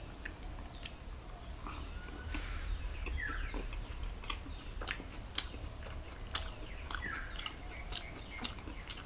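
A person eating butter chicken and naan with his hands: chewing and lip smacks make many small sharp clicks over a low steady hum. Two short falling chirps come about 3 s and 7 s in.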